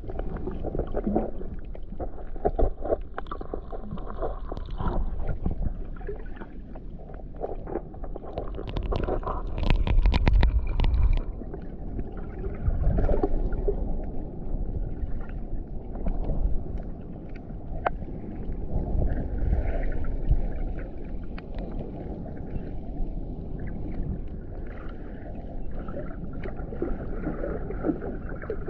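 Muffled underwater sound heard through a camera's waterproof housing: a rumbling wash of moving water with scattered clicks and crackles, swelling louder about nine to eleven seconds in.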